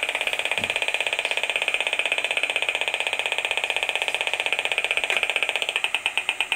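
Magnetic field meter's audio signal: a rapid train of buzzing ticks that slows into fewer, more widely spaced pulses near the end as the measured field drops with the ceiling light switched off.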